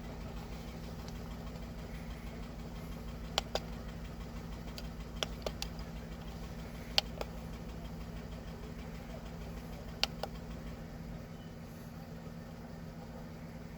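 VW Polo 1.2 three-cylinder petrol engine idling steadily, with a misfire on cylinder 1 logged by the code reader. A few sharp clicks sound over the idle.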